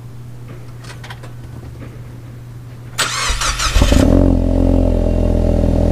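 2016 Ford Mustang EcoBoost's 2.3-litre turbocharged four-cylinder being started: the starter cranks for about a second, three seconds in, and the engine catches and settles into a steady idle, heard at the exhaust.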